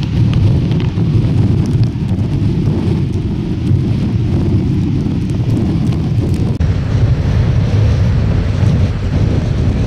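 Strong wind blasting the camera's microphone: a steady, heavy low rumble with a fainter hiss above it, which changes abruptly about two-thirds of the way through.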